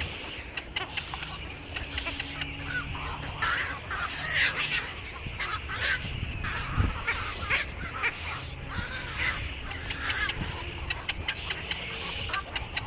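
A flock of birds calling and chattering at their nests: many overlapping short chirps and squawks, with scattered sharp clicks, over a low steady hum.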